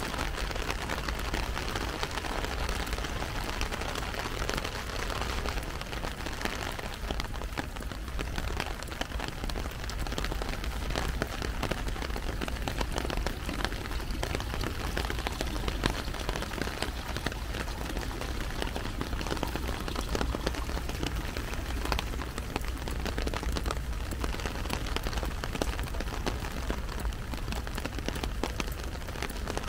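Heavy rain falling steadily, its drops striking an umbrella overhead as a dense run of small ticks, over a steady low rumble.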